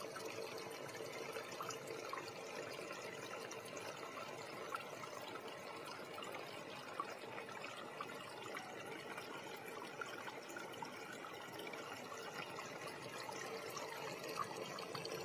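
Water trickling steadily from a small pipe into a homemade tabletop fountain: a thermocol pot lined with stones.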